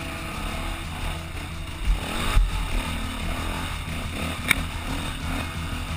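KTM enduro motorcycle engine running under the rider, the revs rising and falling as the bike rides a rough dirt trail. A sharp knock comes about four and a half seconds in.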